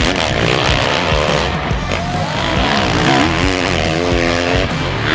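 Off-road racing dirt bike engines revving, their pitch repeatedly rising and falling as the bikes climb a steep dirt hill, with background music underneath.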